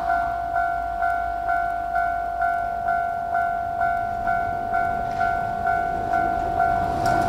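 Japanese railway level-crossing warning bell ringing in a steady, even 'kan-kan' rhythm of about two strikes a second. A low rumble builds under it near the end.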